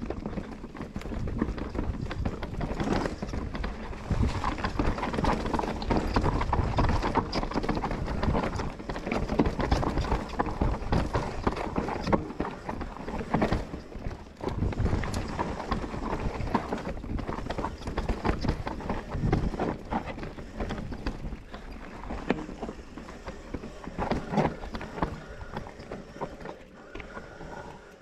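Commencal Meta enduro mountain bike ridden down a rough trail: tyres rolling over dirt and rocks, with a continual run of knocks and rattles from the bike over the bumps and a brief lull about halfway through.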